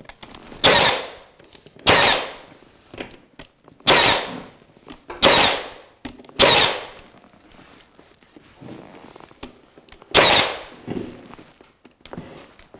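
Cordless nail gun firing nails through flexible crown moulding into the wall: six loud, sharp shots, mostly one to two seconds apart, with a longer pause before the last one.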